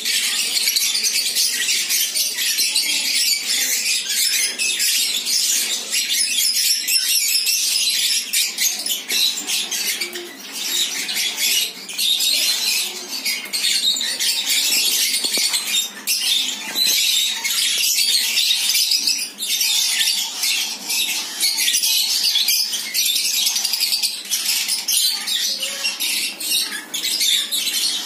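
A flock of caged lovebirds chattering: a dense, unbroken stream of shrill chirps and squeaks from many birds at once.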